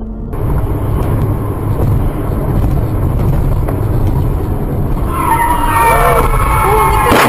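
Steady low road and engine rumble heard from inside a moving car, then from about five seconds in a wavering high squeal of tyres skidding.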